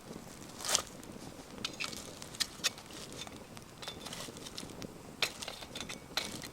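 Wood campfire crackling, with irregular sharp pops over a faint steady background; the loudest pop comes a little under a second in.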